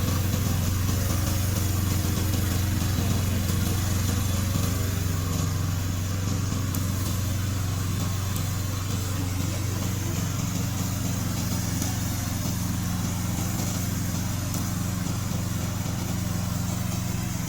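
Remote-control lawn mower's engine running steadily at a constant speed.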